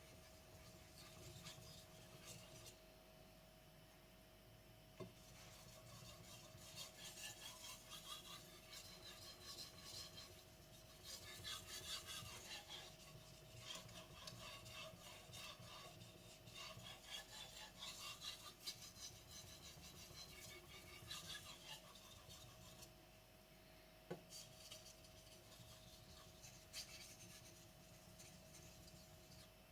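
Blue-steel carbon gyuto blade stroked back and forth on a wet Naniwa whetstone: faint, repeated rasping strokes, busiest in the middle stretch.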